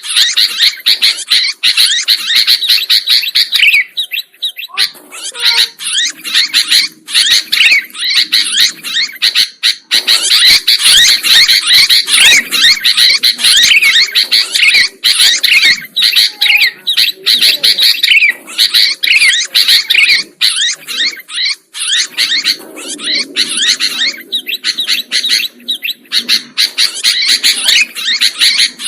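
Sooty-headed bulbuls (kutilang) singing and chattering nonstop in a dense stream of quick, high chirps and short whistled notes.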